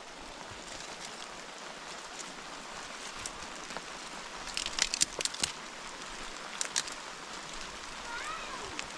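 Steady rain falling, heard as an even hiss. About halfway through there is a quick cluster of sharp taps, with two more a couple of seconds later; these taps are the loudest sounds.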